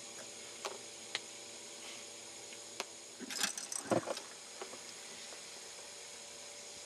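A few sharp clicks, then a short rattling clatter about halfway through, from gear being handled in a fishing boat, over a steady faint hum and hiss.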